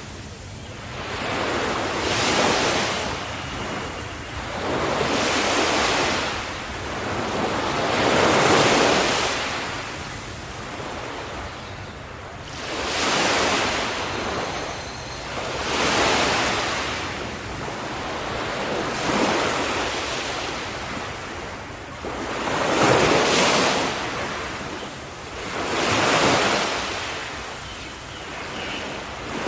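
Small ocean waves breaking and washing onto a shore. The surf swells and fades in a rhythm of roughly one wave every three seconds.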